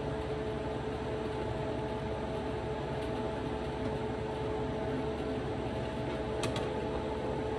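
Steady hum of an electric fan or appliance motor, a constant tone over an even hiss, with one faint light click about two-thirds of the way through.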